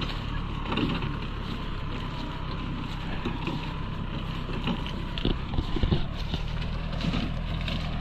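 Farm tractor engine running steadily as it works through tall grass, with wind buffeting the microphone and a few brief knocks about five to six seconds in.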